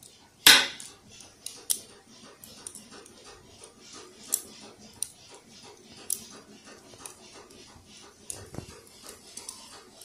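Practice balisong (butterfly knife) handles and blade clicking against each other as it is flipped, in irregular sharp clicks, with one loud clack about half a second in.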